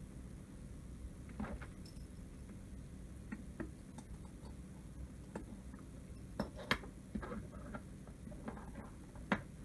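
Scattered light clicks and taps of a small screwdriver, tiny screws and metal parts as an iPhone is being unscrewed and taken apart, the sharpest two about two-thirds of the way in and near the end, over a low steady hum.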